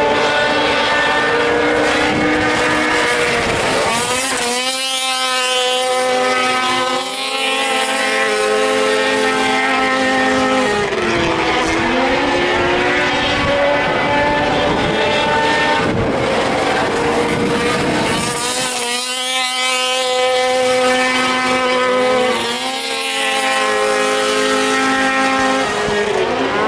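Several small racing engines running together, their pitch sweeping up and down as the machines circle the oval, with a pitch sweep about four seconds in and another about nineteen seconds in.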